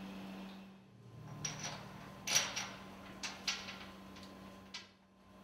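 Irregular light metallic clinks and knocks, about half a dozen, as steel parts are handled at a large two-stroke engine's piston rod foot and stuffing box flange, over a steady low hum.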